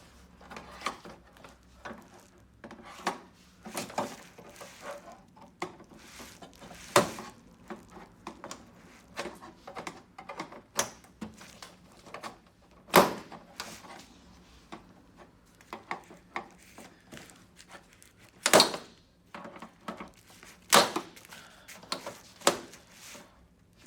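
Plastic TV casing and hand tools being handled as the set is opened: irregular clicks, taps and knocks, with four sharper knocks spread through.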